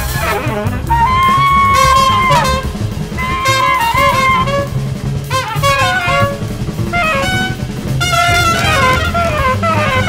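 Small jazz band playing: alto saxophone and trumpet carry a melodic line over drum kit, with a long held note about a second in, then shorter phrases and quick stepping runs near the end.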